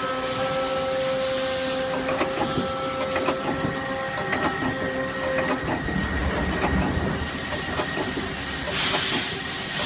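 Nakamura-Tome CNC lathe running, with its spindle turning: a steady machine whine made of two held tones, scattered clicks, and hissing that swells about half a second in and again near the end.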